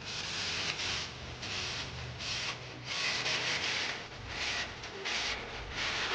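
Repeated rubbing or scraping strokes in an irregular rhythm, about one to two a second.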